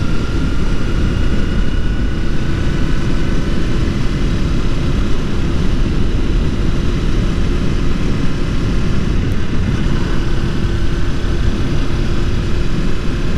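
Motorcycle cruising at a steady speed: heavy wind noise with a steady engine drone and a faint whine held at one pitch.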